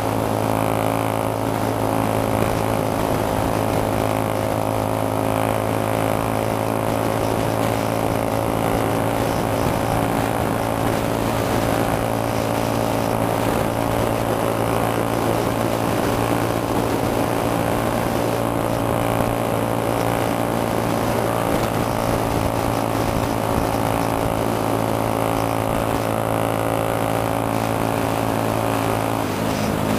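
Cruiser-style motorcycle engine running at a steady cruising speed under a constant rush of wind and road noise; the engine note shifts just before the end.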